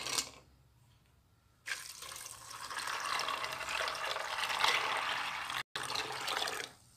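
Almonds rattle briefly against a stainless-steel pot as a hand stirs them. A couple of seconds in, a stream of water is poured over them into the pot, splashing steadily for about five seconds; the almonds are being covered with water to blanch them.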